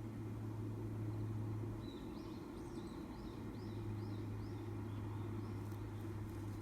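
A Japanese tit giving a run of about seven quick, high arched chirps, beginning about two seconds in, over a steady low hum.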